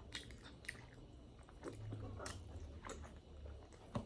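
Quiet chewing of chicken momo dumplings, with a few faint wet mouth clicks scattered through.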